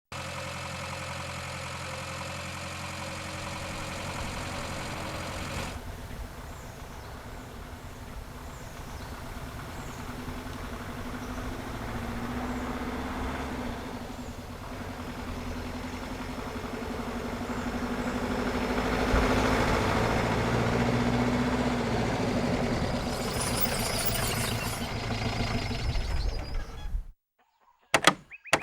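Hindustan Ambassador car engine idling steadily, then running with a rougher, noisier sound that builds up as the car drives. The sound cuts off abruptly near the end, followed by a couple of sharp clicks.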